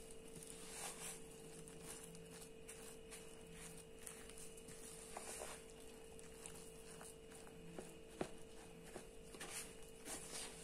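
Faint, irregular scraping and soft knocks of a wooden spoon stirring clumpy flour-and-water roti dough against a metal bowl, with one sharper knock about eight seconds in. A steady low hum runs underneath.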